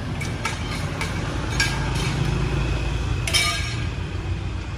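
Sharp metallic clinks of metal parts knocking together, two louder ones about a second and a half in and just past three seconds, with fainter ones around them, over a steady low rumble.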